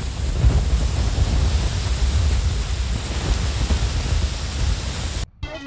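Wind buffeting the microphone outdoors: a loud, steady rushing noise with a heavy, uneven low rumble. It cuts off suddenly about five seconds in, when music begins.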